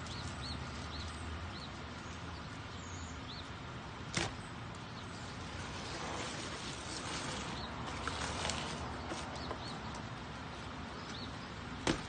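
Steady outdoor background noise with faint, short high chirps of small birds every second or so, and two sharp clicks, one about four seconds in and one near the end.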